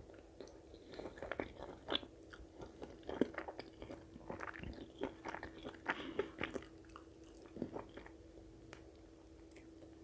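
A person chewing and biting food close to the microphone: wet mouth clicks and soft crunches at irregular intervals, thinning out after about eight seconds, over a steady faint hum.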